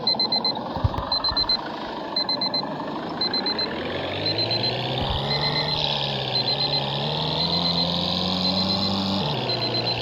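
Electronic warning beeps in short bursts of rapid pips, repeating a little faster than once a second, over a vehicle engine that speeds up about four seconds in and drops back about nine seconds in.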